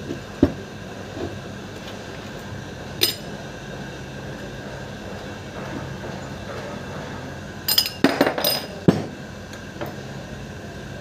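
Metal starter-motor parts clinking and knocking as they are handled and fitted together: a knock about half a second in, another near three seconds, and a quick run of clinks around eight to nine seconds, over a steady background hum.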